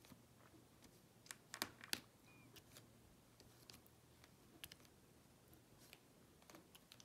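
Faint, scattered light clicks and taps of a diamond-painting drill pen setting small diamond drills onto the canvas, with a few louder clicks between one and two seconds in.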